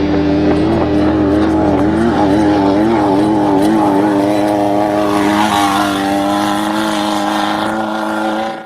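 Off-road race vehicle's engine running at high revs, its pitch wavering up and down as the throttle is worked, then holding steadier.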